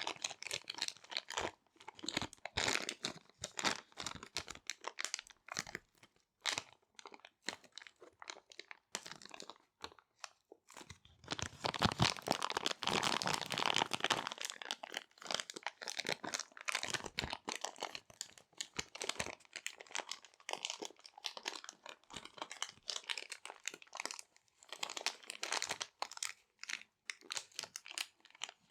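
Small resealable plastic bags being crinkled and handled close to the microphone: irregular, dense crackling with busier stretches and short pauses between.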